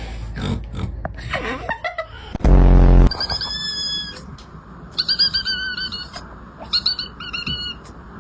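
Cat vocalisations: a loud, low-pitched cry lasting under a second, about two and a half seconds in, then several short bursts of high-pitched mewing through the second half.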